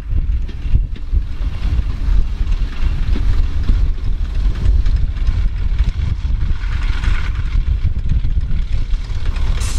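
Wind rumbling and buffeting on the microphone, with a Class 121 single-car diesel railcar running in the distance under it, a little louder near the end.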